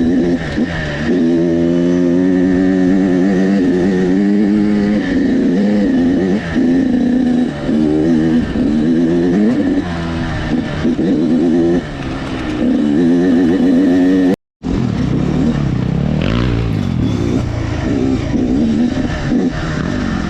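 Dirt bike engine under way on a trail, its revs rising and falling continually as the rider works the throttle and gears. The audio drops out for an instant about two-thirds of the way through, then the engine carries on.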